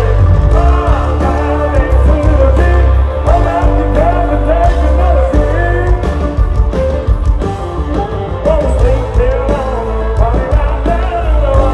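Loud live country band with a male lead singer: a sung vocal line over drums, a heavy bass and fiddle, banjo and keyboards.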